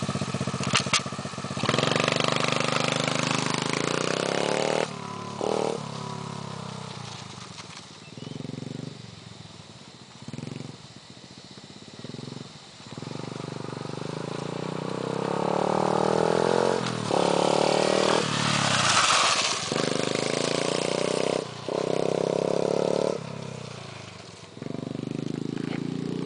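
Small pit bike engine revving hard as it pulls away, its pitch climbing again and again with short breaks at the gear changes. It grows fainter in the middle and then loud again as the bike comes back near, still rising and dropping through the gears.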